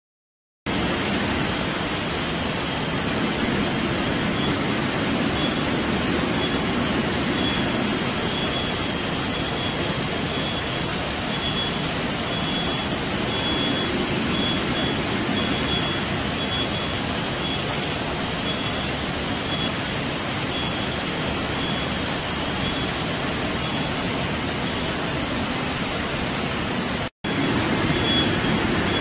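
Steady machinery noise of a polypropylene melt-blown nonwoven production line running on the factory floor, an even rushing hiss over a low hum, with a faint high tone switching on and off. It starts suddenly under a second in and drops out for a moment near the end.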